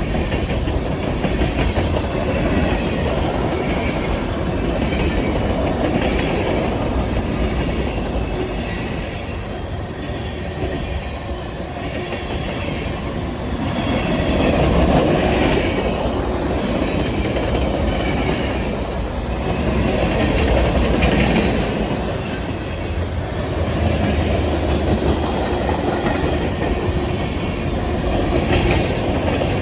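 A train's cars rolling steadily past, wheels clicking in a repeating rhythm over the rail joints, with a few brief wheel squeals near the end.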